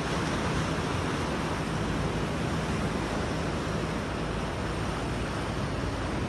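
Sea surf washing over rocks, a steady rushing noise, with wind noise on the microphone.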